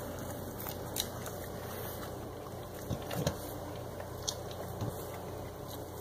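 A cat eating dog food from a stainless steel bowl: a few scattered sharp crunches over a steady hiss.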